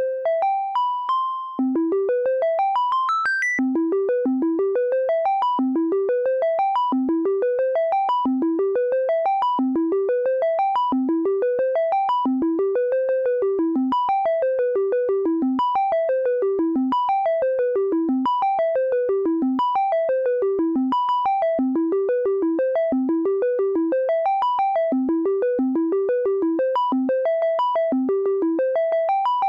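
Elektron Monomachine synthesizer playing an arpeggio. A few separate notes are followed, about two seconds in, by a rapid run of single notes that climbs and falls in pitch over and over.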